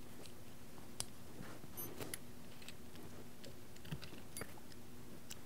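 A few light, scattered clicks and taps of small metal parts being handled and set in place on an air rifle's action.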